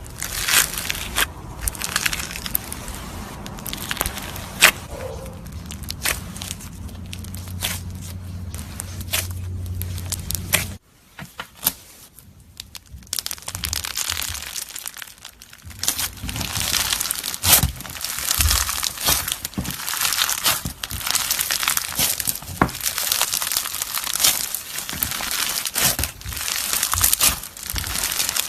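Crunchy slime being squeezed and pressed by hand: a dense run of crackles and pops. A low hum under the first part stops abruptly about eleven seconds in; the crackling is sparse for a few seconds, then dense again from about sixteen seconds.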